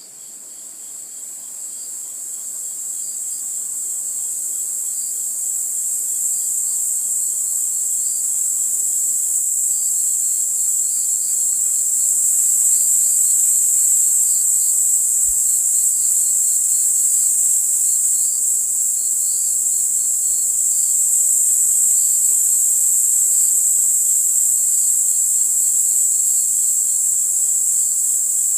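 Steady, high-pitched insect chorus, a continuous buzzing trill of crickets or similar insects with faint repeated chirps beneath it, fading in over the first few seconds and then holding steady.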